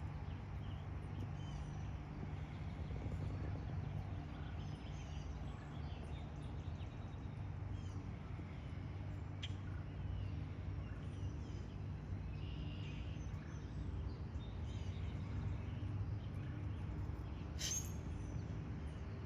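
Outdoor ambience: a steady low rumble throughout, with scattered faint bird chirps and one sharper chirp near the end.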